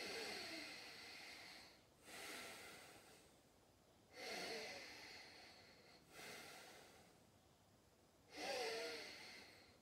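A person breathing slowly and audibly in a counted yoga breath hold. There are three breath cycles about four seconds apart, each a louder breath followed by a softer one.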